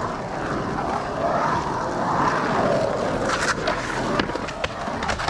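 Skateboard wheels rolling over a concrete bowl, a rumble that swells and then eases, with a few sharp clacks in the second half.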